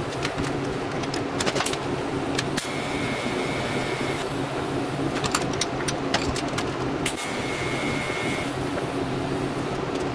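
TIG welding arc buzzing steadily over the welder's hum, with sharp crackles scattered through it and a thin high tone that comes and goes three times.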